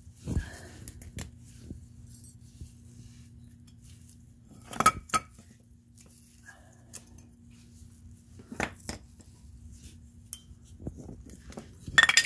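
Sharp metallic clinks of steel brake pads and their spring clips being pulled out of a caliper bracket and handled. There are a few scattered clinks, a pair about five seconds in, more near nine seconds, and the loudest cluster at the end.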